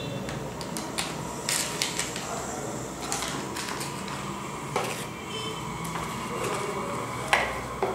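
Packaging being handled in a cardboard shipping box: scattered clicks, rustles and crinkles of cardboard and plastic bags, with a louder knock about five seconds in and another near the end.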